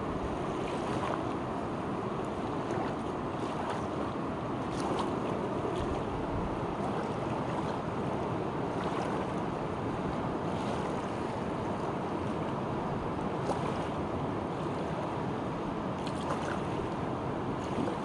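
Fast-flowing, muddy river rushing steadily over rapids: a constant full rush of moving water, with now and then a small splash breaking through.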